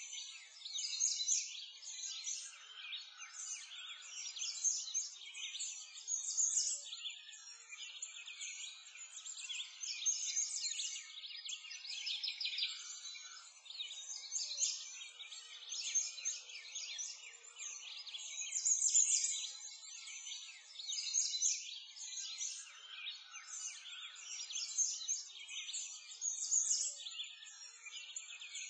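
Many small birds chirping and singing at once, a dense, continuous chorus of short high chirps and trills.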